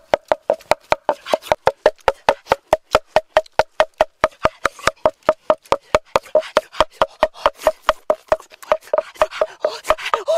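Wooden pestle pounding in a mortar in a fast, even rhythm of about four to five strokes a second, each stroke a sharp knock with a short hollow ring from the mortar.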